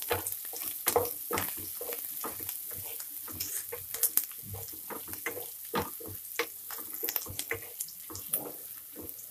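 Chopped green chilli, garlic and ginger sizzling and crackling in hot oil in a steel pan, stirred and scraped with a wooden spatula. The sizzle grows gradually quieter.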